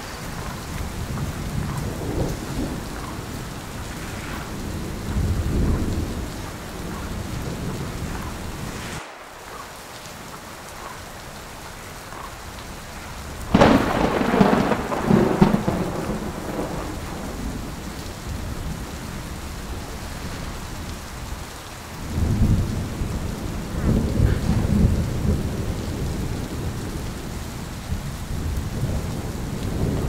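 City street ambience in a heavy snowstorm: a steady rushing noise with low rumbling surges that swell and fade, the loudest about thirteen to sixteen seconds in and another batch about twenty-two to twenty-five seconds in.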